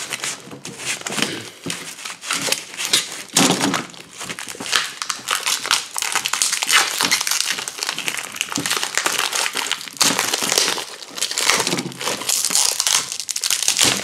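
Clear plastic packaging bag crinkling and crackling irregularly as an accelerator pedal is worked out of it by hand.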